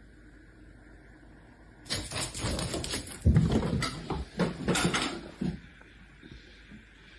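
A run of bumps and clattering lasting about three and a half seconds, loudest a little after the middle, between stretches of faint room hum.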